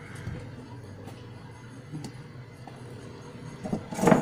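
Handling noise inside an opened CRT TV chassis: a few light clicks, then two sharp knocks near the end, the second the loudest, over a steady low hum.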